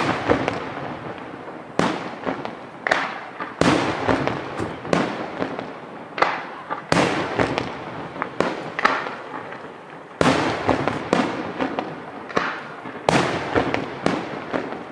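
Aerial firework shells bursting in quick succession, a loud bang about every second, each followed by a rolling echo.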